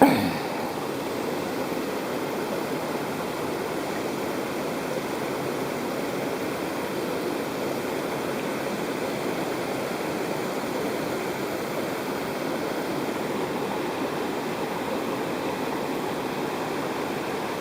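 Mountain stream rushing steadily, with one brief knock right at the start.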